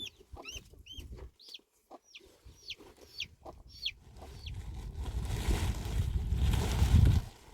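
Birds chirping, short high falling calls several a second, over the first four seconds. Then a rushing noise like wind on the microphone builds up, becomes the loudest sound near the end, and cuts off suddenly.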